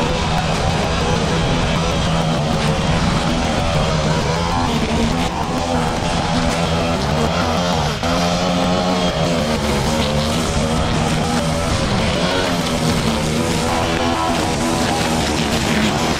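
Petrol string trimmer (brush cutter) running at high revs, its pitch rising and dipping as the line cuts through thick, overgrown grass and weeds.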